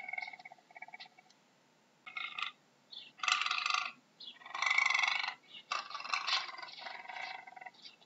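Puma (cougar) vocalizing in a series of short calls: a softer, pulsing call at the start, then three louder, harsher calls in quick succession between about three and six and a half seconds in, each lasting half a second to almost a second.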